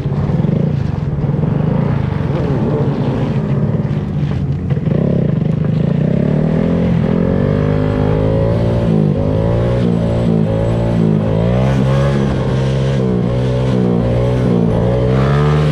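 Motorcycle engines running, then from about halfway through revving up and down over and over, the engine pitch rising and falling every second or so.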